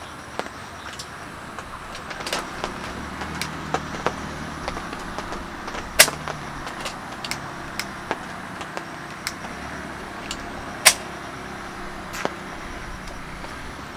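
Metal clicks and clanks of a hurricane lantern being handled and hung on a pole, irregular and light, with two sharper clanks about six and eleven seconds in. Under them runs the steady rush of the nearby river.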